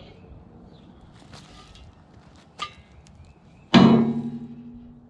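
Heavy steel pallet fork clanging against the loader bucket, a loud sudden strike near the end that rings on with a low, slowly fading tone, after a small click a little earlier.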